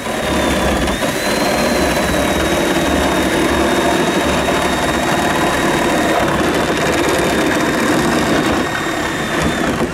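A motor-driven machine running steadily, with a thin high whine that dips briefly about a second in and again after six seconds, and cuts off suddenly at the end.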